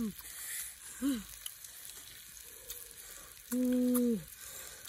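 Beef and vegetables sizzling as they cook, with a steady crackle throughout. Over it come a few short pitched calls that rise and fall, and one louder held tone lasting under a second, about three and a half seconds in.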